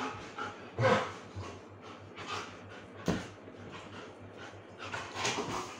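German Shepherd dog panting in short, irregular breathy huffs as it plays, with a sharp tap about three seconds in.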